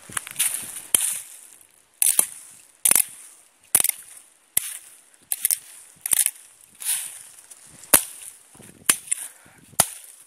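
An old machete hacking at brush and leaf litter: a sharp chop about every second, some in quick pairs, with leaves rustling in between.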